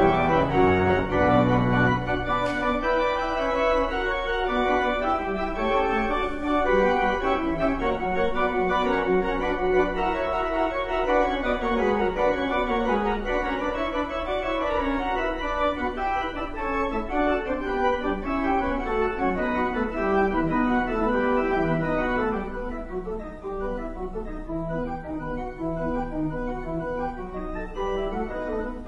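Church organ playing a contrapuntal piece: many sustained notes moving in several voices at once, with deep pedal notes in the first couple of seconds. It grows softer about three-quarters of the way through.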